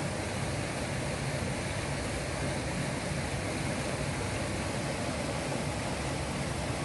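Steady rushing noise of river water, even in level throughout.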